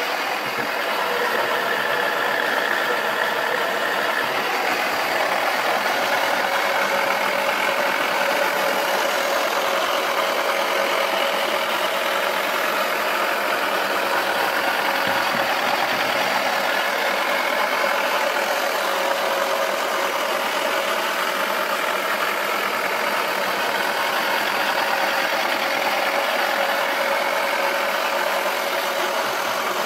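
Battery-powered Wacky Washer toy washing machine running: its small motor whirs steadily as it spins the drum, and the plastic body rattles as the toy shuffles and turns on its feet.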